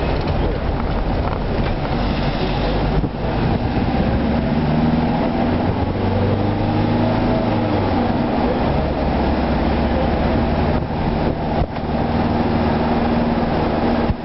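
Shuttle bus driving, heard from inside the cabin: steady engine hum and road noise, the engine's pitch shifting as the bus changes speed.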